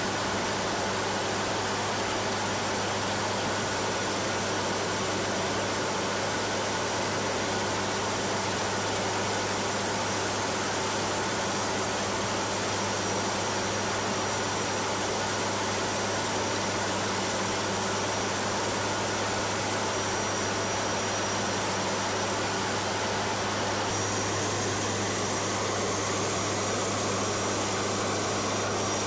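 Steady in-flight drone heard inside the cockpit of a WC-130J Hercules turboprop: a constant low engine hum under an even hiss of airflow.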